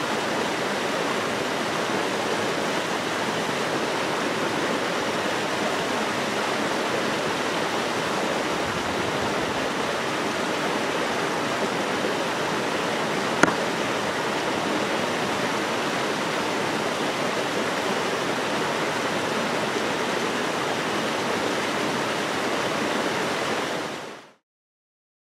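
Small mountain waterfall spilling into a rocky pool: a steady, even rush of water, with a single sharp click about halfway through. The sound drops away quickly near the end.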